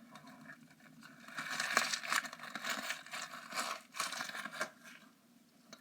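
A homemade squishy ball filled with foam beads being squeezed and kneaded in the hands, giving an irregular crinkling, crackly rustle that dies down near the end.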